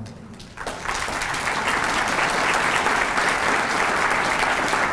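Audience applauding, many hands clapping together, starting about half a second in.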